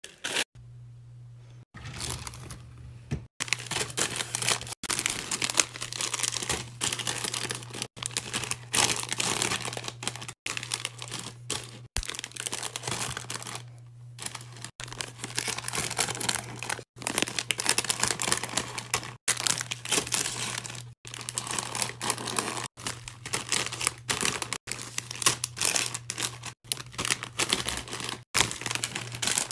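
Plastic snack bags crinkling as they are handled and packed into a drawer, in short bursts broken by brief gaps, over a steady low hum.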